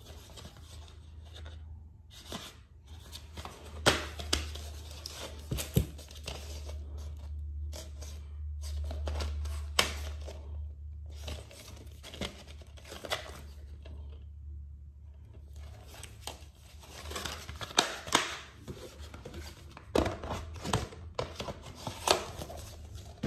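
A plastic DVD case being handled and opened close to the microphone: scraping and rustling, broken by sharp clicks.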